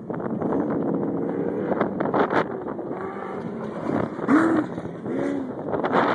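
Off-road race vehicle engines heard outdoors, revving up and dropping back in several short bursts over a steady rumble, with wind buffeting the microphone.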